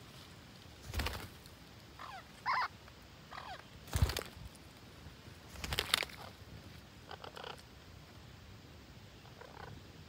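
Green parakeets at a tree-hole nest giving a few short, faint calls, with wing flaps as one flies in to land. There is a sharp thump about four seconds in.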